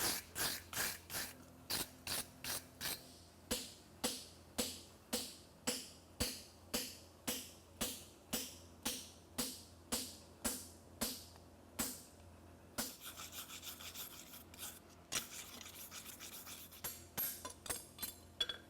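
Wire brush scrubbed back and forth over a steel horseshoe in steady strokes, about one and a half a second, then, from about 13 seconds in, in quicker, lighter strokes.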